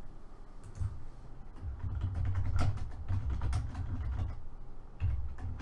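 Computer keyboard keys clicking in scattered short runs as a few words are typed, over a low rumble that comes and goes.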